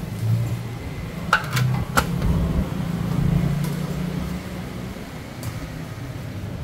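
Steady low hum of a motor vehicle engine, with three sharp clicks about a second and a half in.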